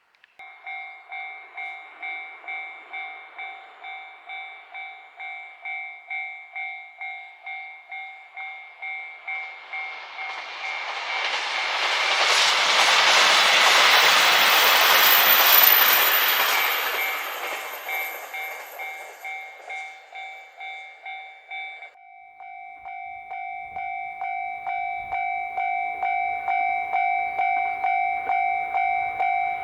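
Level crossing warning bell clanging about twice a second while a train runs through the crossing. The passing rises to a loud rush of wheels and running gear about ten seconds in and dies away by about twenty seconds. The bell keeps ringing, louder and sharper from a little after twenty seconds.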